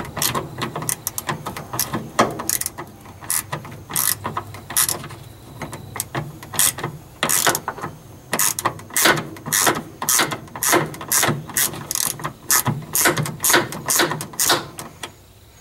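Hand ratchet wrench clicking in uneven runs of sharp clicks, several a second, as a stubborn small fastener on a battery cable connection is worked loose.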